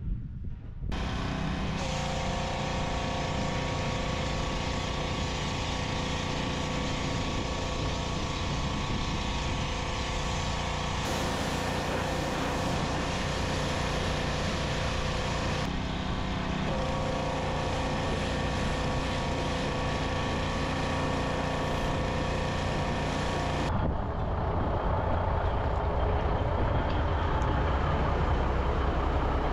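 An engine running steadily under a hiss of spraying water while the truck is washed, broken by a few abrupt cuts. Near the end it gives way to a deeper, lower engine rumble.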